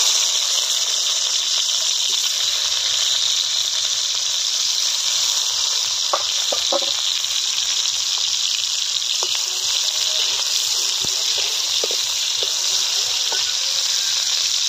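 Tomato pieces sizzling steadily in hot mustard oil in a karahi, with a few small crackles and spatters now and then.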